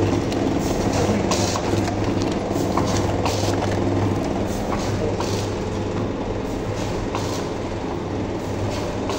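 Automatic pouch packing machine running: a steady motor hum overlaid with repeated mechanical clacks about once or twice a second.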